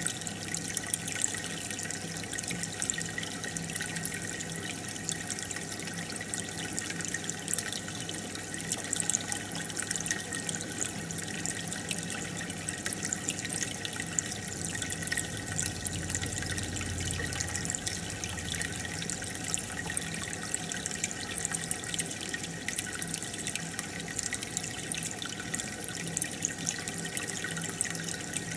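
Aquarium water bubbling steadily as a stream of air bubbles rises through the tank, a constant crackle of small pops over a steady low hum.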